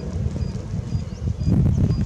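Wind buffeting the microphone outdoors: an uneven low rumble in gusts, strongest in the second half.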